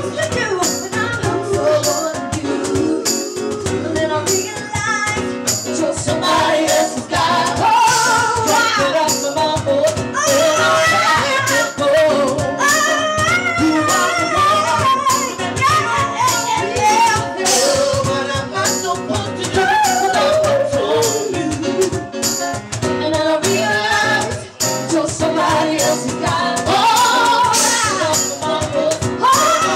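A live band playing a song, with a woman singing into a microphone over a steady beat.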